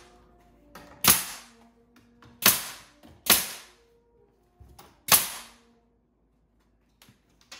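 Pneumatic nail gun firing nails into a wooden window sill board: four sharp shots at uneven spacing, about a second in, twice close together around two and a half to three seconds, and once more near five seconds.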